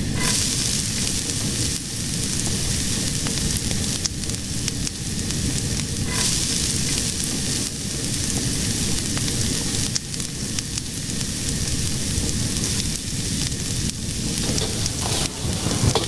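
Fire burning steadily: a continuous hiss of flames over a low rumble.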